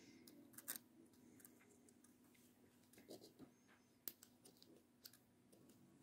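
Near silence with a few faint clicks and taps as fingers handle a smartphone flex cable and press its connector onto the mainboard.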